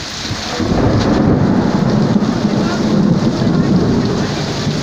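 Heavy rain pouring down, with a deep rumble of thunder that swells in about half a second in and keeps rolling over the downpour.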